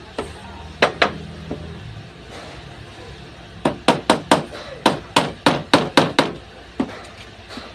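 Hammer blows on wood while a door jamb is being built. Two sharp strikes come about a second in, then a quick run of about ten strikes at roughly four a second, and a last single blow near the end.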